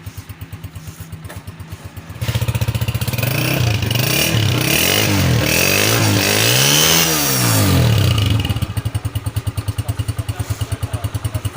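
Honda CG125's single-cylinder four-stroke engine idling with a steady putter, then revved up and down several times from about two seconds in, settling back to idle near the end.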